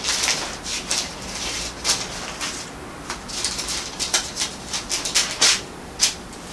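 Bible pages being turned and rustled: a string of short, irregular papery rustles, a few sharper than the rest.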